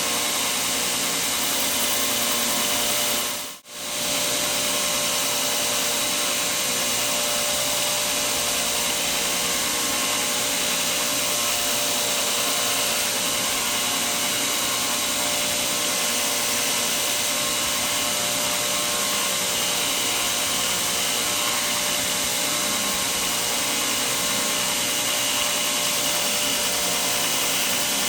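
A power tool running steadily with an even rushing noise and faint whine, dropping out for a moment about three and a half seconds in and then carrying on.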